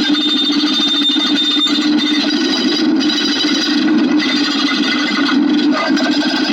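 Dense, rapid clicking that runs on without pause, steady and loud.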